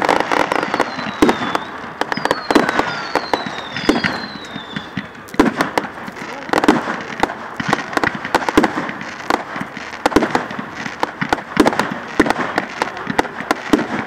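Fireworks display: a steady run of bangs and crackling bursts at uneven intervals. In the first few seconds several short whistles fall in pitch.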